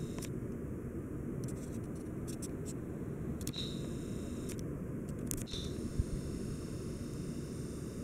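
Seagull Lighting Main St. ceiling fan with wood blades running steadily: an even, low whooshing hum of motor and moving air. There are a few faint light ticks in the middle and a single soft low bump about six seconds in.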